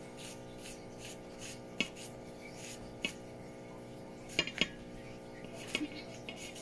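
Chef's knife cutting chunks off a bottle gourd held in the hand, with the pieces dropping into a stainless steel bowl: about five sharp clicks, spread apart, over a faint steady hum.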